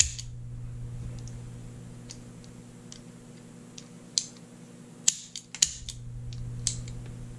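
Sharp metallic clicks from an antique Forehand Arms double-action revolver's action and cylinder as the reassembled gun is worked by hand: a few scattered clicks, then a closer run from about four seconds in, the loudest two about half a second apart. A steady low hum runs underneath.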